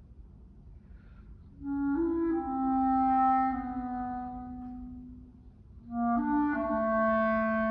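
Solo clarinet playing slow phrases unaccompanied: after a short pause, a few quick notes lead into a long held note that fades away, then a second phrase begins about six seconds in.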